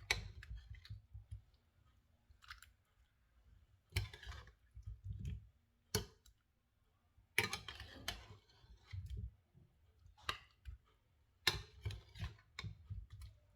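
Kitchen handling sounds of food being mixed: irregular bursts of soft clicks and rustling, a few clusters a few seconds apart with quiet gaps between.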